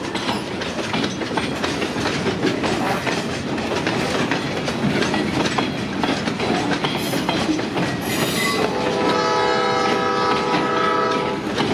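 Freight train rolling by, its wheels clattering on the rails. Near the end the horn of EMD GP38 locomotive ELS 402 sounds one steady blast of about three seconds, a horn whose tone the owner finds weird and says doesn't sound right.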